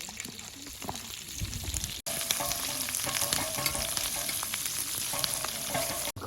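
Food sizzling and crackling as it fries in a pan. Quieter for about two seconds, then after an abrupt cut the sizzling is louder and denser until another cut near the end.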